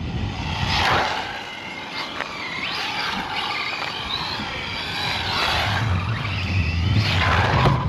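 Electric motor of a ZD Racing RX12 RC rally car whining up and down in pitch several times as the car speeds up and slows. A low rumble comes at the start and again near the end.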